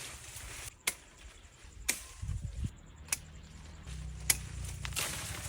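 Mulberry branches being pruned, each one snapping cleanly with a sharp crack, about five snaps roughly a second apart.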